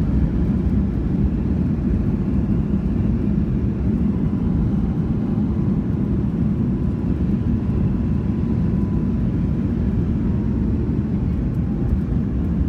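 Cabin noise of a Boeing 737 MAX 8 with CFM LEAP-1B engines rolling on the ground after landing: a steady low rumble with a faint steady whine above it.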